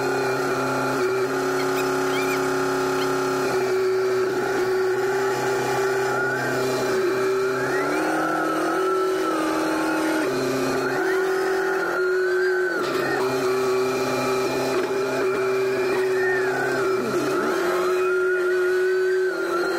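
SkyTrak telehandler engine running steadily under load while its hydraulics lift and carry a bundle of steel beams on the forks. The engine note shifts in steps every few seconds, and a higher whine wavers over it, climbing near the end.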